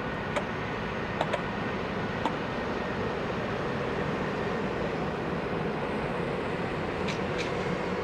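Airbus A330 jet engines running at taxi idle: a steady jet hum with a faint steady whine. A few short clicks come in the first couple of seconds and twice more near the end.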